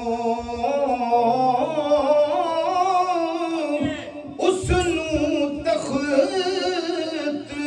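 A man singing a Punjabi–Urdu naat without instruments, drawing out long melodic notes with wavering ornaments and a brief pause about four seconds in.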